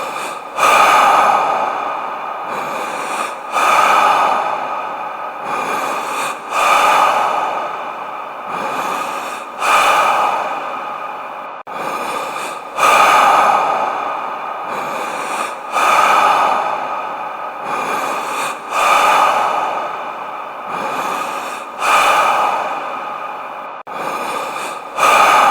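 Deep human breathing with big reverb: slow, even breaths, about one every three seconds, each starting loud and fading away.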